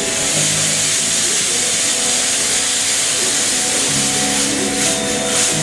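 Stage fog machine jetting fog with a loud, steady hiss that cuts off near the end, over background music with held low notes.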